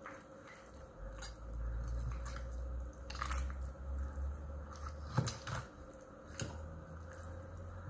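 Knife and fork carving a roast chicken on a wooden cutting board: the blade cutting through the meat, with several sharp clicks of the knife and fork against the board, over a low rumble.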